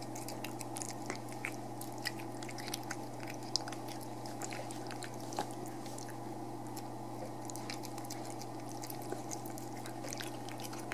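Cat eating chunky wet cat food from a bowl: a quick, irregular run of small wet clicks and smacks of chewing, over a steady low background hum.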